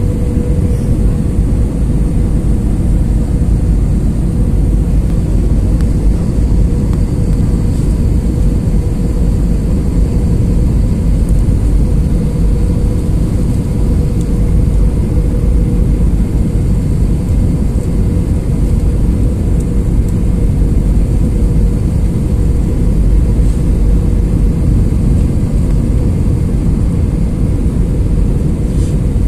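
Steady cabin noise inside an Airbus A321 on approach for landing: turbofan engine drone and airflow rumble heard from a window seat beside the engine, with a steady mid-pitched hum running through it.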